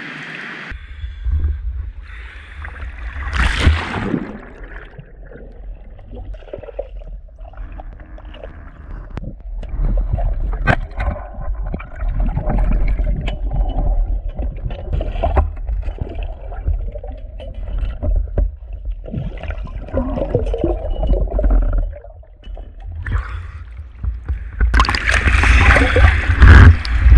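Underwater sound picked up by an action camera in a river: a steady low rumble with gurgling, bubbles and scattered clicks as the spearfisher swims, and a splash about three and a half seconds in. Near the end, loud splashing as he breaks the surface.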